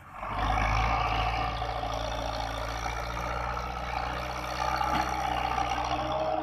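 A tractor's diesel engine running steadily and working hard as it hauls a loaded earth trolley. The low engine note starts abruptly and holds steady throughout.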